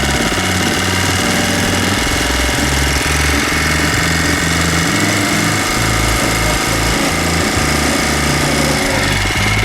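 A homemade motorized bicycle's 79cc engine running steadily while the bike is ridden.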